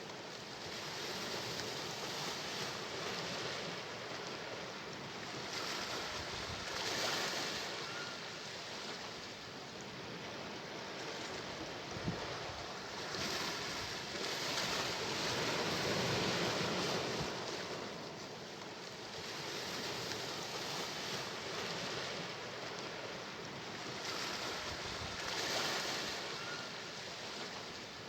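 Sea waves breaking and washing on the shore, swelling and falling back every few seconds.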